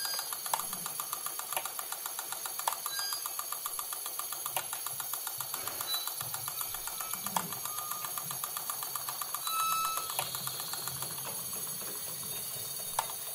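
Electromechanical relays clicking in a fast, even rhythm, with a few short electronic beeps about two-thirds of the way in.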